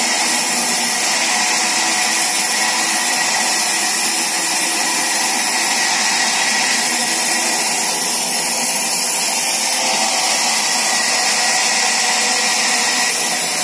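Large vertical band saw running, its blade ripping a long wooden plank lengthwise as workers feed it through; a steady, even whirring noise without breaks.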